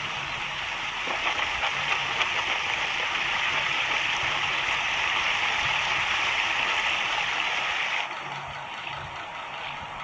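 Steady rushing water, a dense even hiss that stops suddenly about eight seconds in, leaving a quieter background.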